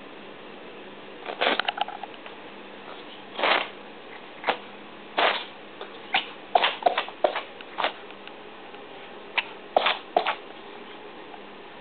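A pet animal sneezing over and over: about a dozen short, sharp sneezes, some single and some in quick clusters of two or three.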